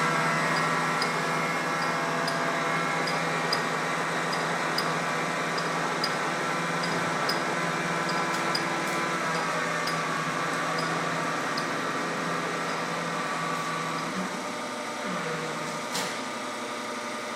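Binns & Berry Data 90 CNC lathe's spindle drive running steadily in its low range at about 55 RPM: an even mechanical hum with several steady tones and a faint, regular ticking. The sound eases slightly near the end, with a single sharp click.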